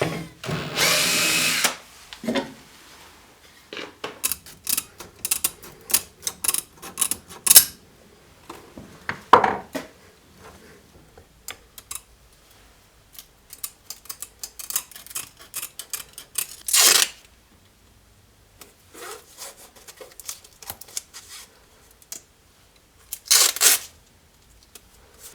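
Workshop woodworking sounds: a power tool runs for about a second at the start, then scattered clicks and knocks of wood and tools being handled, with a few short scraping bursts.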